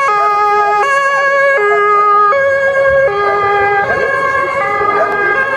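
Swiss police car's two-tone siren sounding, switching between a high and a low note about every three-quarters of a second.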